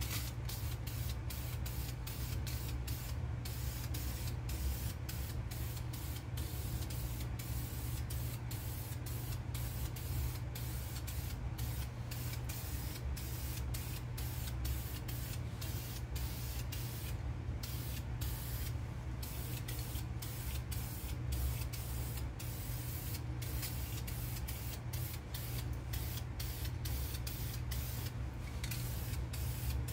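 Aerosol spray can of enamel primer hissing in long passes, broken by many brief pauses where the nozzle is let go, with a steady low hum underneath.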